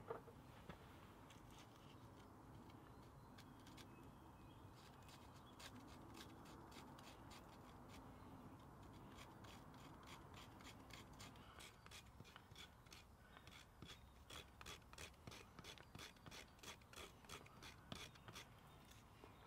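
Faint strokes of a knife blade shaving a piece of split firewood. The short scraping cuts come sparsely at first, then settle about halfway through into a steady run of about three a second.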